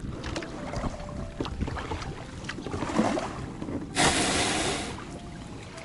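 Water lapping and splashing around a kayak's hull as it is paddled in to the shore, with small knocks and clicks, and a louder rushing swish lasting about a second about four seconds in.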